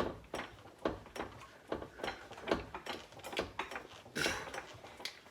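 Irregular metallic clunks and knocks as a transmission is shifted and nudged into position on a jack, with a louder scrape about four seconds in.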